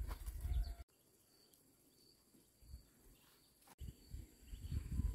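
Quiet rural ambience with a faint steady high insect whine. Low rustling and bumping noise comes in the first second and again near the end, and the sound cuts off abruptly twice.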